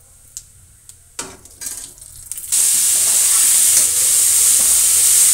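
Chopped cabbage, carrot, capsicum and tomato frying in hot oil in an aluminium kadai while being stirred with a slotted spoon. After a few light clicks and a brief rustle, a loud, steady sizzle starts abruptly about two and a half seconds in.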